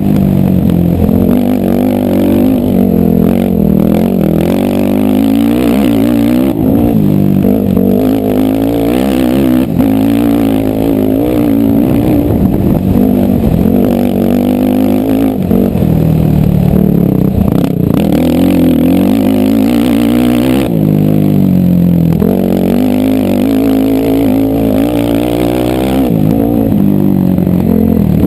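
ATV engine running hard, its revs rising and falling continuously as the quad is ridden off-road.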